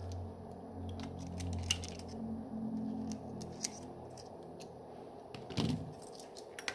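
Light clicks and taps of small parts and tools being handled while a phone is worked on, over a low steady hum that fades out about halfway, with a duller knock near the end.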